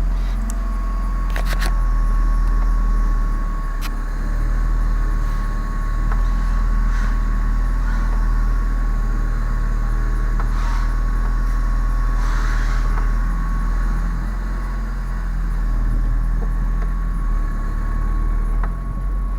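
1999 Saturn SL2 being driven, its engine running steadily with road noise while the new brake pads are tested for squeal. A few light clicks occur, and no brake squeak is heard.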